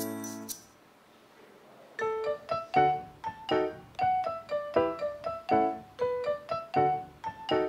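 Background piano music: a held chord dies away, there is a brief lull, and about two seconds in a new, quicker piano passage of separate notes begins.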